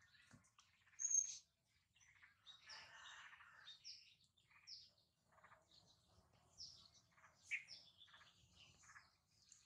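Faint bird chirping: many short high chirps scattered throughout, one brief sharper note about a second in, and a short rustle around three seconds in.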